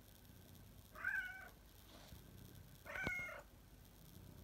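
Domestic cat meowing twice, two short calls about two seconds apart, with a sharp click during the second meow.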